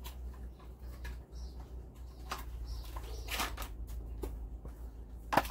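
Light clicks and knocks of chainsaw parts being handled and fitted together, with one sharper knock near the end, over a steady low hum.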